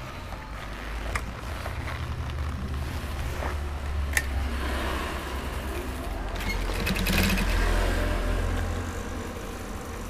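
Industrial single-needle sewing machine running on its under-table electric motor, stitching through a cowhide leather jacket with a steady low hum and a fast stitching rhythm. It is loudest about six to nine seconds in, with a sharp click about four seconds in.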